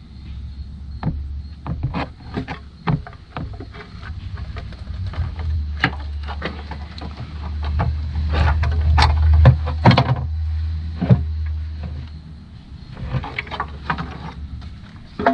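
Scattered clicks, taps and knocks of hands and tools handling parts on the engine while the front timing cover is being fitted, over a low steady rumble that swells around the middle and stops shortly before the end.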